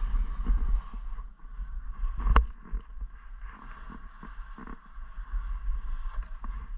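Wind buffeting the microphone of a helmet-mounted action camera while skiing, over the hiss and scrape of skis sliding on packed, chopped snow. There is one sharp knock about two and a half seconds in.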